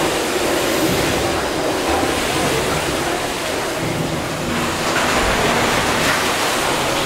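Gimson steam beam engines running: a steady hiss and rush of steam over the low sound of the moving machinery, which swells about five seconds in.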